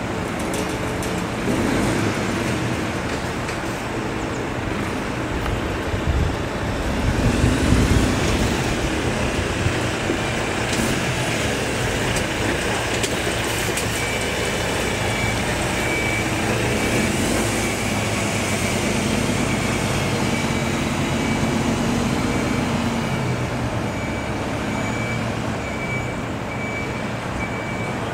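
Street traffic passing, with a louder vehicle going by about seven to eight seconds in. A faint, high, repeating beep sounds through the second half.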